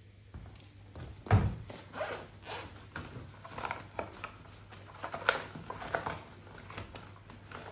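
A heavy thump about a second and a half in, then a run of short scraping and rustling handling noises every half-second or so.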